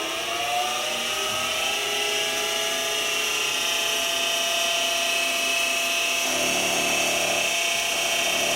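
Mini milling machine's spindle motor spinning up with a rising whine that levels off after a couple of seconds, then running steadily. A lower, rougher sound joins about six seconds in.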